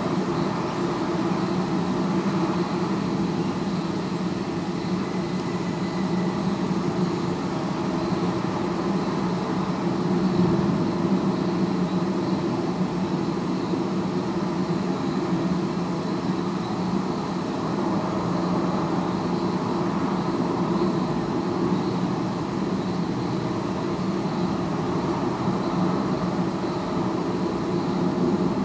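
Steady hum of distant city traffic, swelling a little now and then, picked up through the horns of a sound-mirror listening apparatus.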